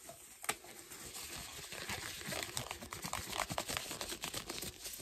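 A glove being pulled onto a hand, crinkling and rustling with many small crackles.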